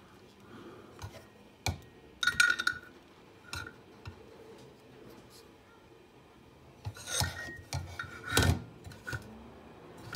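Small metal parts clinking and clicking as a brass C-hub is worked into place on an RC truck's front axle. The light knocks come in scattered clusters, busiest about two seconds in and again around seven to eight and a half seconds.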